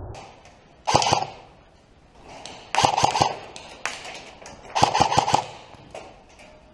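Airsoft gun firing three short bursts of several shots each, about two seconds apart.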